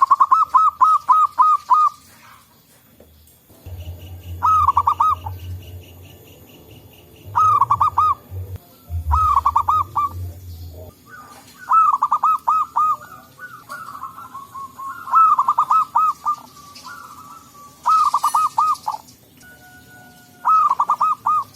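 Zebra doves cooing: about eight short phrases of rapid, evenly repeated coos, several birds answering one another. A low rumble runs under the calls from about four seconds in to about eleven seconds.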